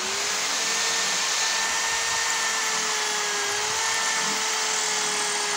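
Handheld electric drill boring into a brick wall, its motor whining at a steady speed with a dense grinding hiss from the bit in the brick.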